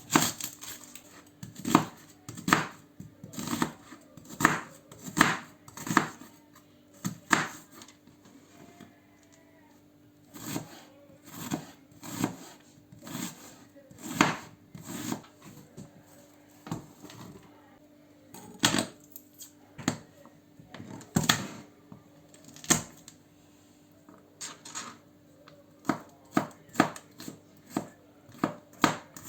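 Knife chopping food on a cutting board: sharp, separate strokes at about one or two a second, stopping briefly twice.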